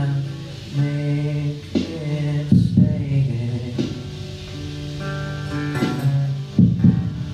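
Acoustic guitar strummed in a live song, a chord struck every second or so and left to ring.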